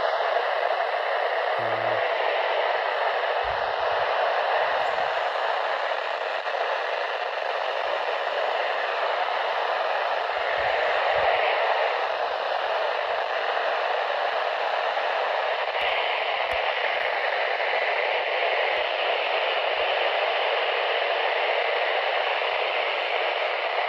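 Steady radio static hiss from a weather-radio receiver's speaker, with the station's signal dropped out.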